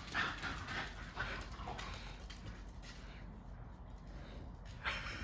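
A French bulldog making a quick run of short, rhythmic, noisy sounds that fades over about two seconds, then a quieter stretch, with one sudden sound near the end.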